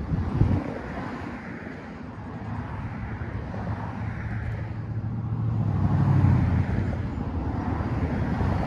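Road traffic going by: a vehicle's low engine hum that swells a few seconds in and then eases off, over a steady rumble of wind. A short thump about half a second in.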